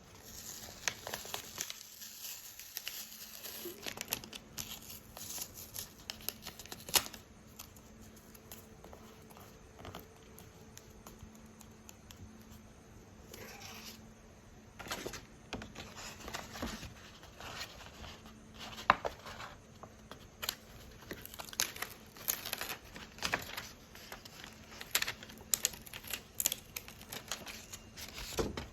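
Sticker-card packaging being handled and unwrapped: paper and plastic crinkling and tearing, with many scattered sharp taps and clicks. A quieter lull comes early on and another before the middle, and a faint steady hum runs underneath.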